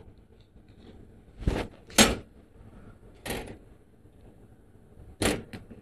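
Handheld laser welding head being handled as its lens cover is refitted: a handful of short metallic clicks and knocks, the sharpest about two seconds in, with a couple more near the end.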